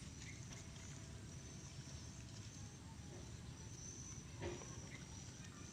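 Faint outdoor background: a steady low rumble with a thin high whine that comes and goes, and one brief knock about four and a half seconds in.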